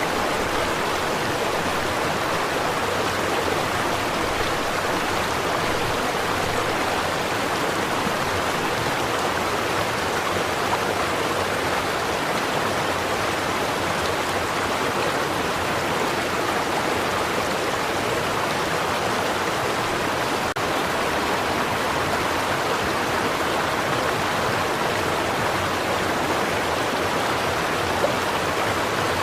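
Small stream flowing over rocks, a steady, even rush and babble of water.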